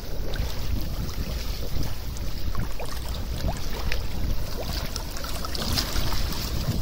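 Sea water sloshing and lapping close to the microphone with a low rumble, and small gurgling pops from volcanic gas bubbles welling up through the shallow seawater. A hand splashes in the water about six seconds in.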